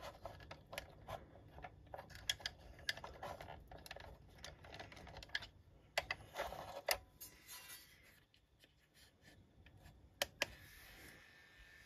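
Faint clicks and knocks of hard plastic as the G.I. Joe Swampmasher toy's parts are handled and fitted by hand. The clicks come in quick irregular runs, stop for a couple of seconds, and then two more come near the end.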